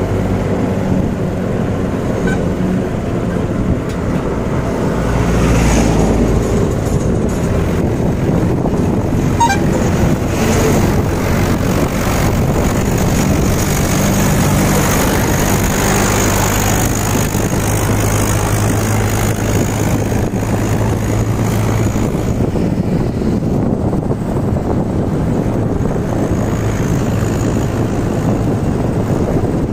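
Mahindra 585 DI tractor's diesel engine running steadily under load as it hauls a heavily loaded sugarcane trolley at road speed, heard from alongside with road noise.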